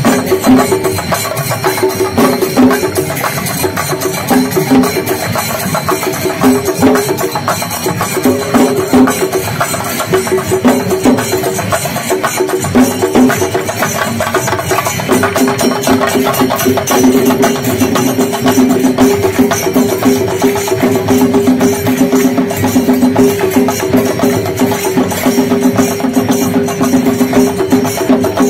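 Festival dance music: drums beating a fast, dense rhythm, with a steady pitched melody line held over it that comes in more strongly about halfway through.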